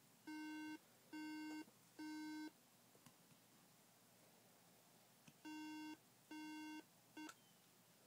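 MacBook Pro sounding its hardware alarm: three long, low, steady beeps, a pause of about two and a half seconds, then three more, the last cut off short. Three beeps repeating about every five seconds is the code Apple Macs use to signal a memory (RAM) fault.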